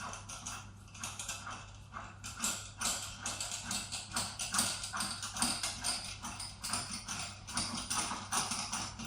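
Rapid, irregular taps and clicks of hand tools and parts being worked during repair of an electronic lamp, several a second, over a steady low hum.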